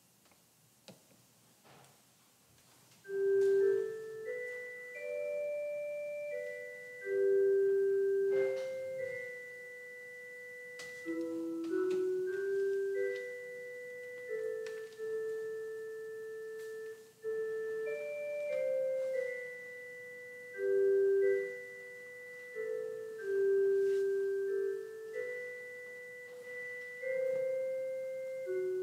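A recorded offertory hymn tune played back, starting about three seconds in after a few faint clicks. It is a single melody line of held, pure-toned notes.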